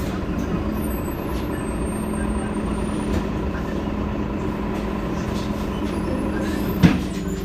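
Heuliez GX 327 city bus idling at a stop, a steady engine hum with a constant drone. About seven seconds in there is a single short, sharp sound, the loudest moment.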